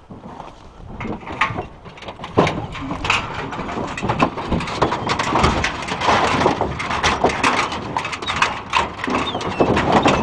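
Pack of deer hounds barking and yelping as they are turned loose for a dog drive. A dense run of short, sharp calls builds up over the first few seconds and then holds loud.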